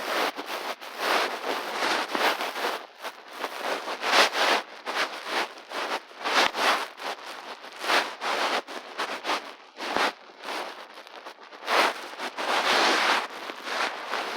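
Irregular crackling and popping, a dense run of short noisy bursts several times a second with no steady tone.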